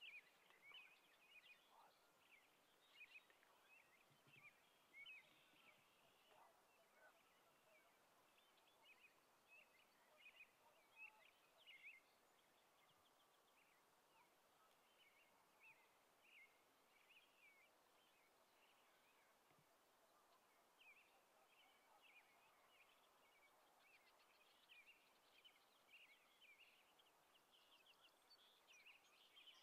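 Near silence with faint small-bird chirps and twitters, many short high calls scattered throughout over a quiet outdoor hiss.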